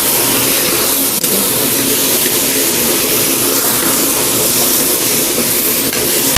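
Chicken frying in hot coconut oil with shallots and coconut in a pan, a steady loud hiss, with a small knock about a second in.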